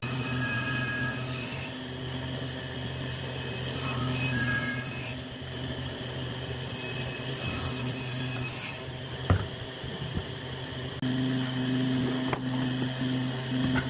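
Pine boards and steel C-clamps handled on a wooden workbench: wood rubbing and scraping, with a sharp knock about nine seconds in, over a steady low hum.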